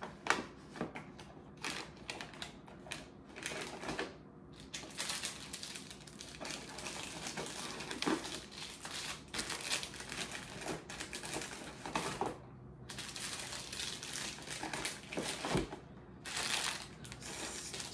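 Tissue paper rustling and crinkling as it is handled and tucked into a gift bag, with irregular crackles and rustles throughout.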